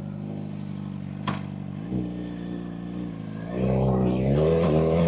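Suzuki GSX-R600's inline-four engine idling, with a single click a little over a second in, then revving up and pulling away louder about three and a half seconds in.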